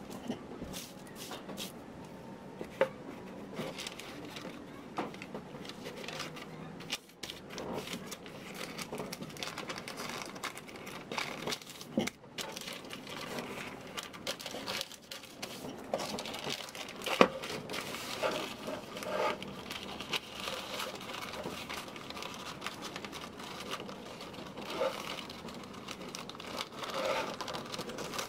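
Thin tissue paper rustling and crinkling as it is folded and pressed around a small painted panel, with a few sharp clicks along the way, the loudest about halfway through.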